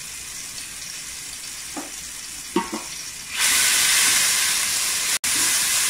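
Blended chilli, shallot, garlic and shrimp-paste spice paste frying in hot oil in a stainless steel pot. At first it is a soft sizzle with a couple of light knocks of the spatula; about three and a half seconds in, the sizzle turns much louder and holds as the paste is stirred. This is the tumis stage, where the paste is fried until the oil separates.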